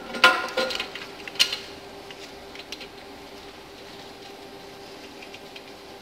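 Metal clinks and a short rattle from the timing chain and bottom chain tensioner of a Nissan Navara D40 engine as they are fitted by hand, with one sharp click about a second and a half in, then light ticks over a steady faint hum.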